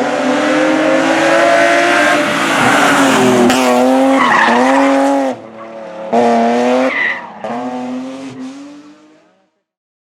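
Competition car at full throttle on a hill-climb course, its engine revving up and down through several gear changes, with tyre squeal. The sound fades away about nine seconds in.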